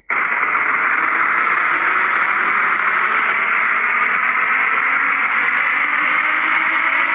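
Loud steady radio static hiss, starting abruptly after a split-second cut in the sound.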